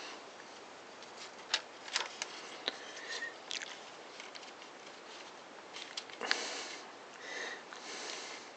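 Faint, scattered small clicks and rustles of insulated wires and plastic parts being handled and pressed into place in a circular saw's motor housing.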